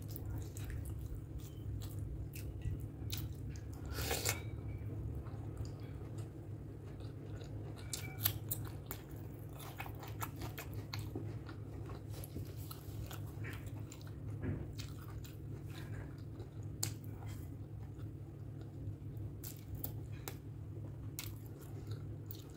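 Close-miked eating sounds of pork curry and rice: chewing with scattered wet clicks and smacks, over a steady low hum.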